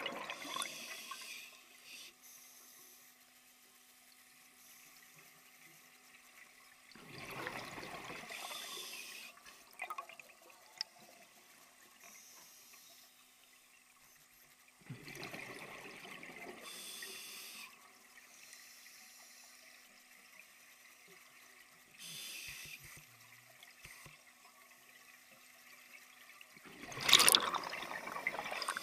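Scuba diver breathing through a regulator, heard underwater: exhaled bubbles burble out in bursts about every seven seconds, the loudest near the end.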